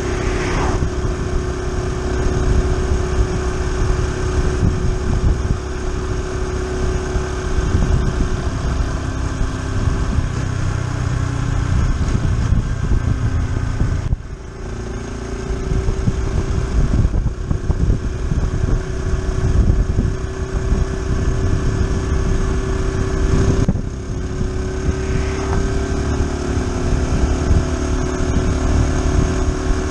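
Honda Super Cub C125's single-cylinder engine running steadily at cruising speed, with heavy wind rumble on the handlebar-mounted camera. A car passes the other way just under a second in, and the sound drops abruptly twice, about fourteen and twenty-four seconds in.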